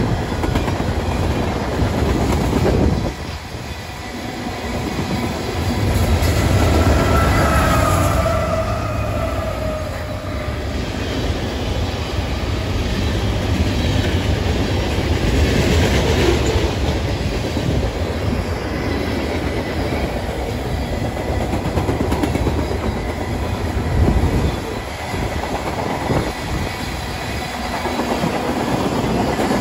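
Freight train of covered hoppers and tank cars rolling past close by, a steady rumble with wheels clacking over the rail joints. A brief high squeal, typical of wheel flanges against the rail, comes about seven seconds in.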